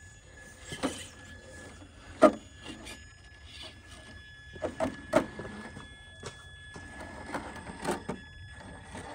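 Traxxas TRX-4 Sport RC crawler picking its way over rocks: a steady high whine from its electric motor, with scattered knocks and scrapes as tyres and chassis strike the rock, the sharpest about two seconds in.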